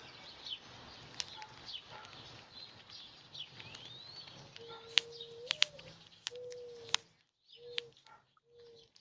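Small birds chirping outdoors: short high calls and one rising whistle, with a few sharp clicks. In the second half a low cooing note comes four times, the first long and lifting at its end, the later ones shorter.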